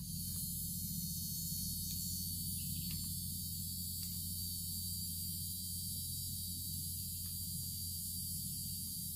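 Cicadas buzzing in a steady, unbroken high-pitched drone, with a steady low hum underneath.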